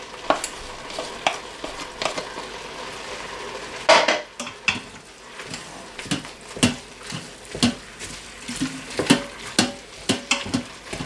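Minced meat and onion frying in an Instant Pot's stainless-steel inner pot on the sauté setting, with a steady sizzle. A wooden spoon stirring it knocks and scrapes against the pot at irregular intervals, most busily about four seconds in and again in the second half.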